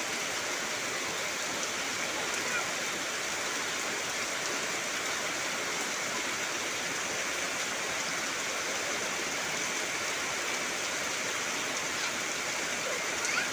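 Heavy rain falling steadily on trees and foliage, a constant even hiss.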